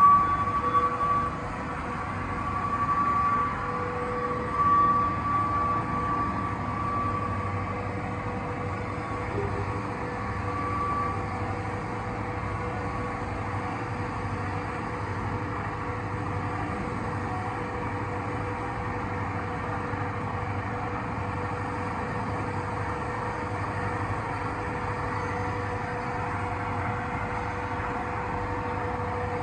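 CBFI 5-ton block ice machine running on test: a steady mechanical hum from its refrigeration unit, with a constant mid-pitched tone and a higher whine that comes and goes through the first ten seconds or so.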